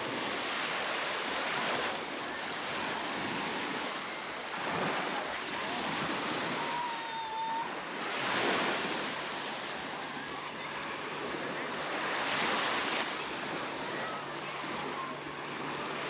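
Sea waves washing onto a beach, the surf swelling and fading about every four seconds.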